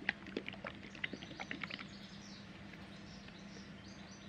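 Light clicks and taps during the first two seconds, then small birds chirping faintly, over a low steady hum.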